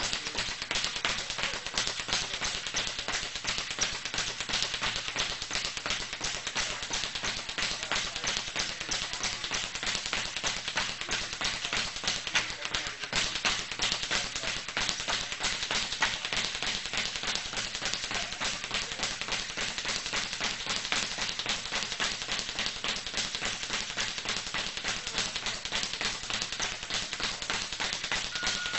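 Rapid, steady run of tapping impacts, many a second, from a boxer's training.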